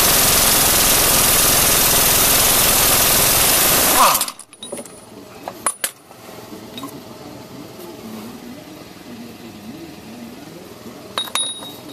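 Air impact wrench hammering steadily on a self-locking suspension bolt for about four seconds, then stopping abruptly as the bolt comes loose. After it, a few faint clicks as the bolt is handled.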